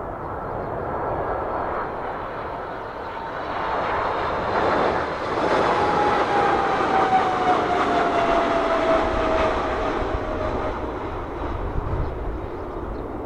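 Airbus A310-300 jet airliner with General Electric CF6-80C2 turbofans on landing approach, passing close by. The engine roar swells to its loudest in the middle, and an engine whine slides down in pitch as the aircraft goes past.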